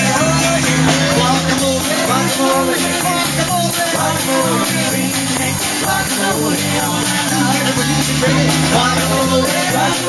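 Live band music: a woman singing into a microphone over guitar, keyboard and a steady bass line.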